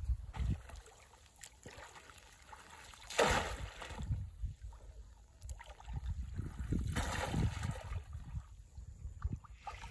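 Water sloshing and splashing around a man wading waist-deep through shallow water, with a louder surge about three seconds in and another near seven seconds.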